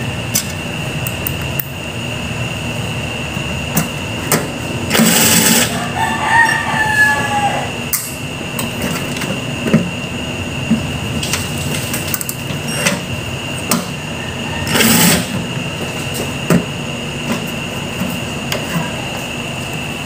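Cordless drill/driver running in short bursts as it drives screws into a microwave oven's chassis, the loudest about five and fifteen seconds in, with scattered clicks of parts and screws being handled. A rooster crows faintly in the background about six seconds in.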